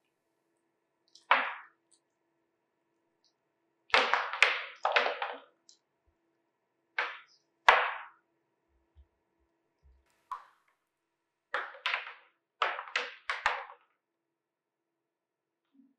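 Dry pieces of pomegranate peel in a mask crackling as fingers press and pull at them: about a dozen short crackles, several coming in quick runs.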